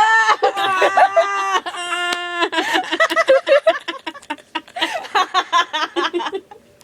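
Girls imitating a baby crying: high, wavering wails for the first couple of seconds, then breaking into giggles and laughter.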